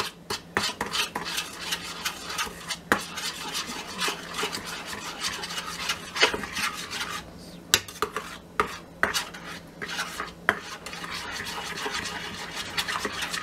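A spoon stirring barbecue sauce mixed with brown sugar and Italian dressing in a small stainless steel bowl. It scrapes round the metal with a wet rasp and knocks against the sides in irregular clicks.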